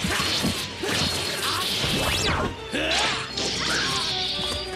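Fight-scene sound effects: sword swishes and sharp striking hits with sparking impacts, over background music.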